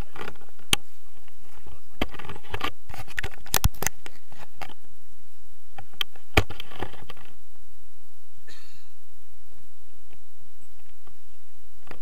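Handling noise on an action camera: scattered clicks and knocks with rustling against the housing, sharpest about three and a half and six seconds in, then quieter.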